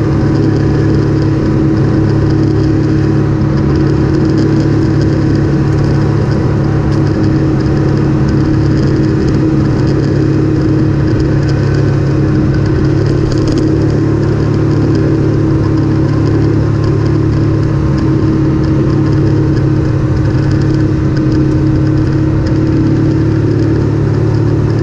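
Off-road vehicle engine running at a steady speed while riding a dusty trail, a constant drone with tyre and wind noise and no change in revs.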